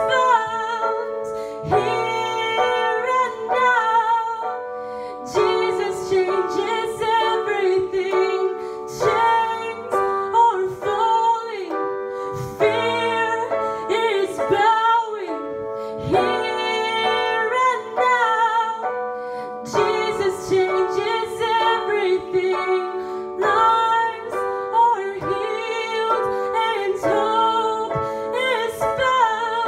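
A worship song: a woman singing a melody over sustained keyboard chords.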